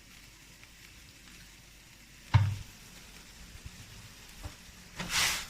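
Faint, steady sizzling hiss from a wok heating on the stove, with one sharp knock about two seconds in and a brief, louder hiss near the end.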